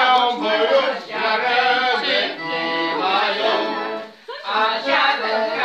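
Accordion playing a folk tune, with people's voices over it; the sound briefly drops out about four seconds in.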